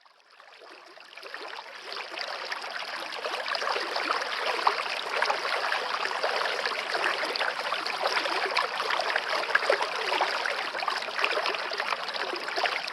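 Stream of water running steadily, fading in over the first couple of seconds.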